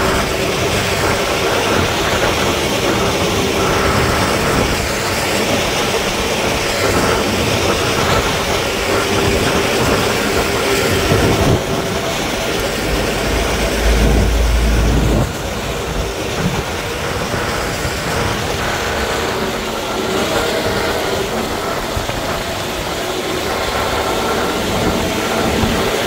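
Heavy diesel road-construction machinery running steadily, with rattling, and a deep low rumble for about a second just past the middle.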